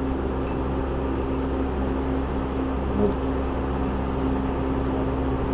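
Steady machine hum with a constant low drone and no speech, with one faint tick about three seconds in.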